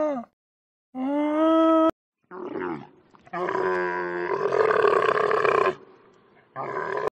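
Alpaca humming: a short steady-pitched call at the start and another about a second in. Then a camel's rough, gurgling bellow, with a brief grumble before it, a long loud call of about two and a half seconds, and a short one near the end.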